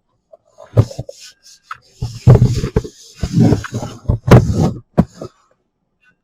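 Handling noise from unpacking a fan and its parts: a run of irregular thuds, knocks and rustles, loudest about two and four seconds in, stopping about five seconds in.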